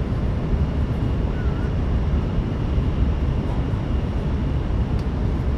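Interior running noise of an N700S Shinkansen train at speed: a steady low rumble of wheels and track heard inside the passenger cabin, with a faint steady high tone above it.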